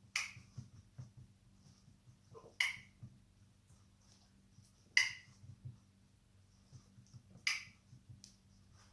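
Four sharp clicks, evenly spaced about two and a half seconds apart, with faint light taps between them.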